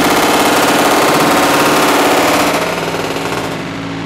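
Sustained machine-gun fire at a very high rate, a dense continuous buzz of shots. It drops in level about two and a half seconds in.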